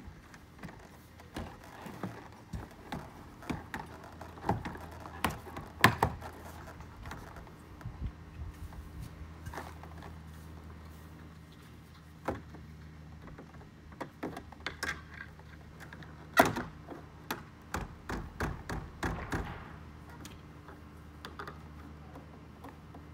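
Hollow plastic knocks and clatter of vinyl fence pickets and a top rail slat being handled and pushed into place by hand, in irregular sharp knocks, the loudest about six and sixteen seconds in.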